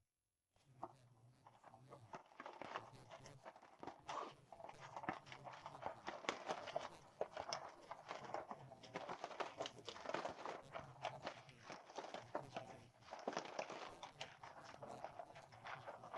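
A dense, irregular run of faint clicks, knocks and crunches, with a low hum that comes and goes in short stretches.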